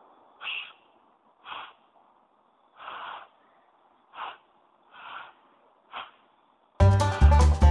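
Six short, airy puffs of breath blown into cupped hands, a failed attempt at a hand whistle that gives a breathy hiss but no clear whistle note. Music starts near the end.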